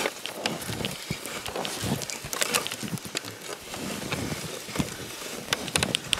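Footsteps crunching on packed snow, a quick, uneven run of crunches with soft thumps about twice a second.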